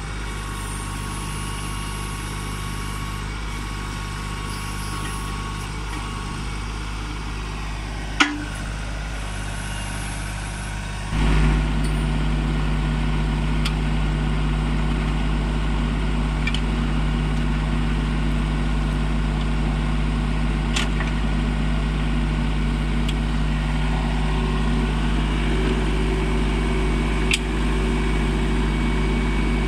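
Diesel engine of a Mahindra Max 26XLT compact tractor running steadily, louder from about eleven seconds in. A single sharp click comes about eight seconds in.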